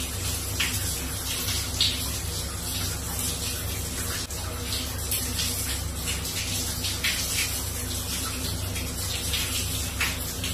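Shower running steadily, water spraying onto a person and the tiled walls of a small stall, with frequent brief louder splashes.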